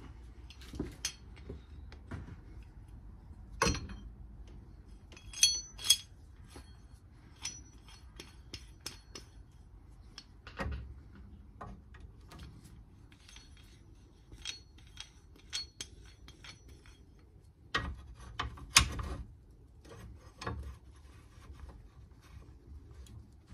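Metal tools and suspension parts being handled: irregular clinks, knocks and rubbing, a few clinks ringing briefly, with one of the loudest knocks about two-thirds of the way through.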